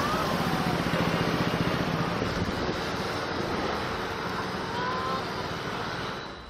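Steady rush of wind noise over the low engine hum of a moving motor scooter.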